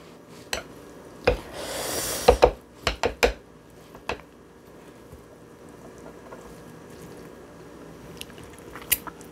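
Utensils clinking against a dish several times as spicy fried noodles are mixed, with a brief rustle about two seconds in.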